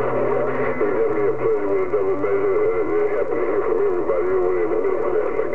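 CB radio receiver audio through the set's speaker: wavering, warbling tones over steady static, squeezed into the radio's narrow band.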